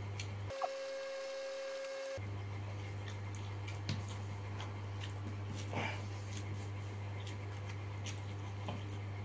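Faint wet eating sounds of fried chicken being torn from the bone by hand and chewed: a few scattered small smacks and clicks over a steady low hum. About half a second in, the hum drops out and a thin steady tone sounds for under two seconds.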